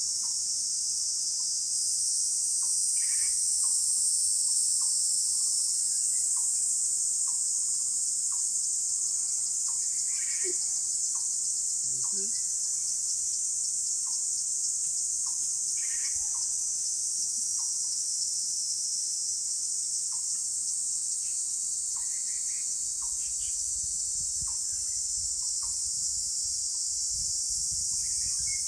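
Crickets singing in a dense chorus: a steady high-pitched trill, with short low pips repeating about once a second and an occasional brief chirp from other animals.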